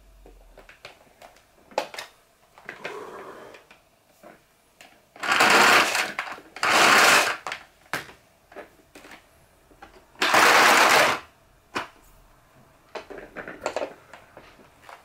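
Toshiba VC-8300 canister vacuum's power cord pulled out of its reel in two long, loud pulls about five seconds in. Some three seconds later the cord rewind draws it back in about a second. Light clicks and knocks of the plastic casing being handled come in between.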